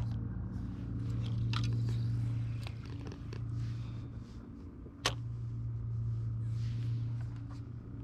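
Steady low hum of a Minn Kota electric trolling motor holding the boat, with light clicks and handling noise from the rod and reel and one sharp click about five seconds in.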